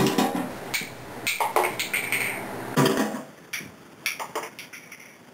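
Metallic clicks and clacks of an AK rifle with an underfolding stock being handled, with several sharp knocks in the first three seconds, then a few fainter clicks.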